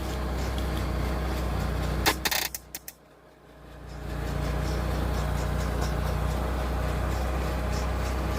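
Honda Accord CB7's engine running with a steady, even low hum. A few clicks and a brief dropout come near the middle.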